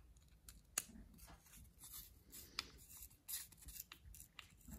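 Faint small clicks and scrapes of a screwdriver bit turning a small screw into a titanium knife scale, with one sharper click about a second in.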